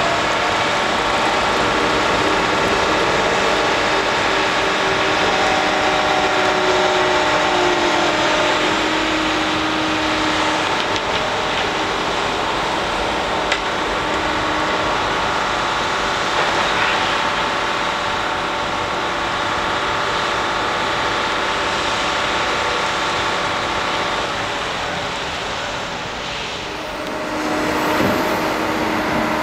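Heavy construction machinery at work: the diesel engine and winches of a Liebherr HS 875 crawler crane working a diaphragm wall grab, a steady mechanical din with several whining tones. It eases briefly near the end, then picks up again.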